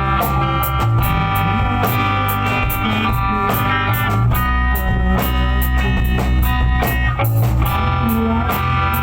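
Loud rock music with guitar and a drum kit playing a steady beat.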